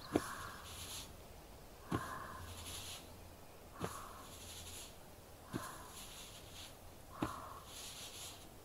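Shoulder massage sounds: five slow kneading strokes, each a soft knock followed by a short rustling rub, about every two seconds.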